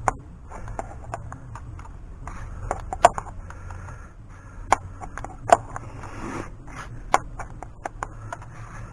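Ratchet wrench clicking in short, irregular runs as a bolt is run down, with a few louder metal clacks.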